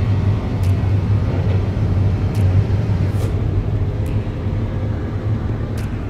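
Combine harvester running under load, heard from inside the cab: a steady low drone of engine and threshing machinery, with a few faint ticks.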